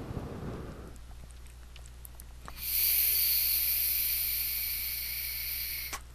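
A breathy exhale at the start, then a click and a loud, steady hiss of air drawn through the Youde Zephyrus rebuildable tank's airflow slots while its coil fires on the Heatvape Invader Mini. The hiss runs about three and a half seconds and stops abruptly with another click.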